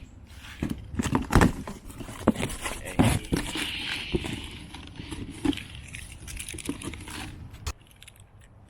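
Cardboard box of an air-suspension kit being opened and unpacked: irregular knocks and thuds as parts and packaging are handled, with rustling of packing material. The handling goes quieter near the end.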